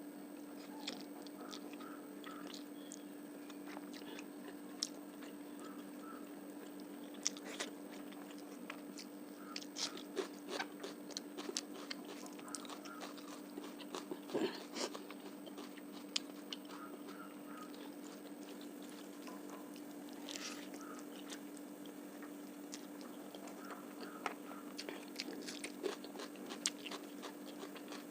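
Close-miked eating of fish curry, rice and onion: irregular chewing, with wet mouth clicks, smacks and occasional crunchy bites, over a steady low hum.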